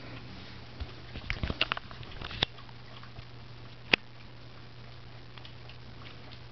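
A cat licking and rubbing its head at a bathtub faucet: a quick run of small wet clicks between about one and two and a half seconds in, then one sharp tick near four seconds, over a steady low hum.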